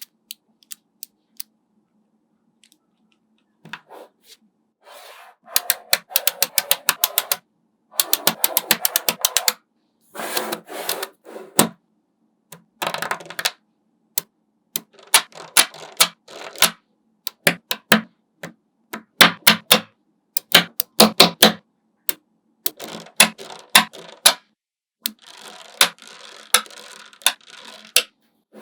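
Small neodymium magnet balls clicking and snapping together, a few single clicks at first, then quick runs of clicks with short pauses.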